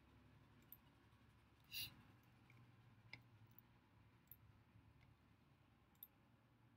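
Faint computer mouse clicks, about five of them spread out, the loudest about two seconds in, over a quiet low room hum.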